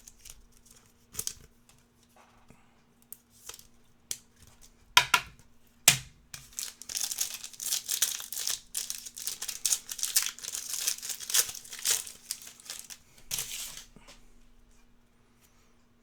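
A trading card pack being torn open and its wrapper crinkled. A few light clicks come first, then two sharp snaps about five and six seconds in, then several seconds of dense crinkling that dies away near the end.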